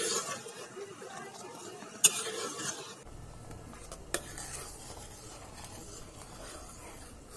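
A metal spoon stirring and scraping thickening milk rabdi round a stainless steel pot, with three sharp clinks of the spoon against the pot about two seconds apart.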